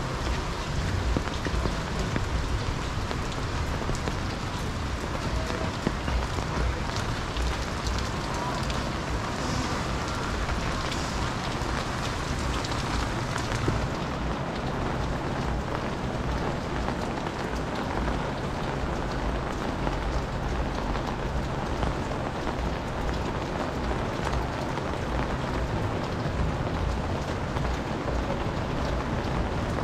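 Steady rain falling on surfaces, a dense even hiss with many fine drop ticks.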